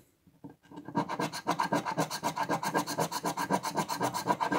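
A large metal coin scraping the latex coating off a Millionnaire scratch-off lottery ticket, in quick back-and-forth strokes about eight a second, starting about a second in.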